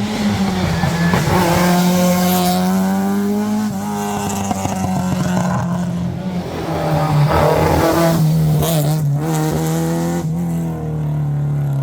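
Rally car engine pulled hard at high revs, the note climbing and dropping back at several gear changes, with some tyre squeal.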